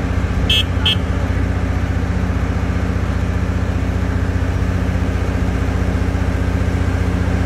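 Large John Deere farm tractor's diesel engine running steadily at close range. Two short high-pitched beeps sound about half a second apart near the start.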